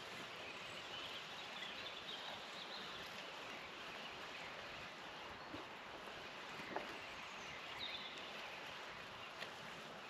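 Quiet outdoor ambience: a steady hiss with faint high chirps and a few soft clicks.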